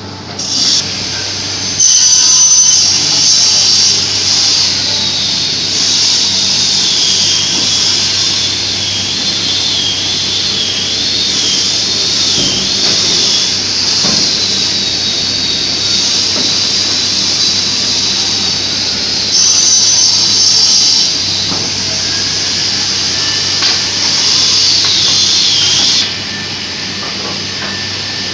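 Woodworking power saw running with a steady low hum and a high-pitched whine that wavers and dips in pitch, as if under load. The sound drops in level briefly near the end.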